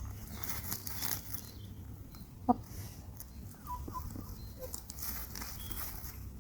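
Domestic chickens in a farmyard, with one short loud cluck about halfway through and a few faint high chirps after it, over a low steady background rumble.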